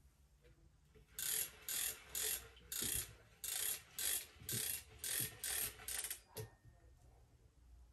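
A vintage Hoover canister vacuum cleaner being handled while switched off: about a dozen short mechanical noises, roughly two a second, from about a second in until near the end.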